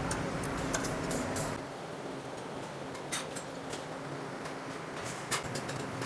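A few light, short metallic clicks and taps of small engine parts being handled while the timing-chain sprocket is fitted, over a steady low hum.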